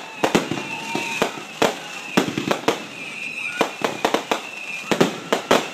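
Aerial fireworks bursting overhead: an irregular run of sharp bangs and cracks, several a second, with a faint high whistle underneath.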